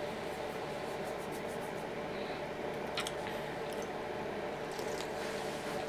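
Sipping and swallowing soda from an aluminium can, with small wet mouth clicks and one sharper click about three seconds in, over a steady background hum.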